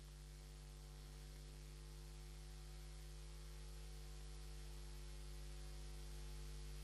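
Faint, steady electrical mains hum with hiss, growing slightly louder.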